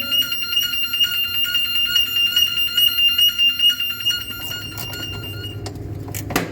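Muffle furnace's high-temperature alarm buzzer sounding a steady, high-pitched electronic tone with a fast buzzing pulse, cutting off about five and a half seconds in. A sharp click follows just before the end.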